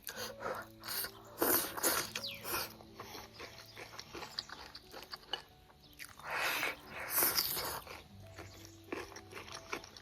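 Soft background music with irregular crunchy chewing and biting sounds of crisp food being eaten.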